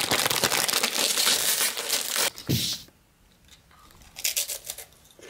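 A foil potato-chip bag crinkling loudly as it is handled close by for about two seconds, ending in a short dull thump; a few lighter rustles come near the end.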